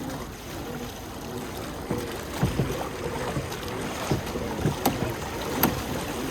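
Water sloshing and lapping around a pedal-driven hydrobike under way, with wind on the microphone and several sharp knocks in the second half.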